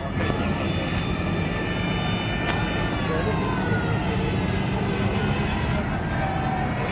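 Diesel farm tractors driving past, their engines running steadily, with a whine that slides down in pitch as one goes by.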